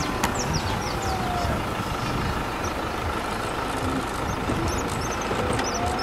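Steady rumble and wind noise from a slowly moving vehicle, with many short, high-pitched bird chirps over it.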